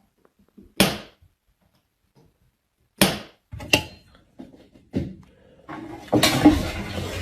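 Several sharp knocks or thuds, a second or more apart, then a denser jumble of knocking and rustling near the end.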